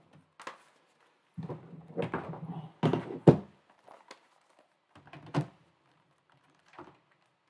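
Laptops being lifted and set down on a laptop stand with a cooling pad: a few knocks and clicks, a scraping slide just over a second in, and a loud thunk about three seconds in.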